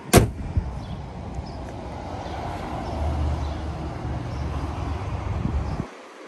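A car hood slammed shut: one loud bang just after the start. A low rumble follows and cuts off suddenly near the end.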